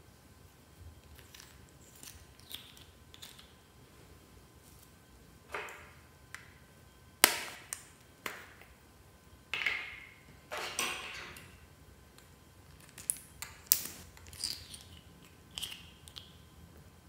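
Fluffy slime being mixed, giving irregular sticky pops, squelches and sharp clicks with quiet gaps between. The sharpest snaps come about seven seconds in and again near thirteen to fourteen seconds.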